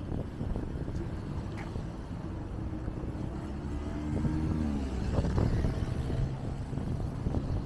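City street traffic: a steady low rumble, with one vehicle's engine passing from about three to five seconds in, its pitch falling slightly.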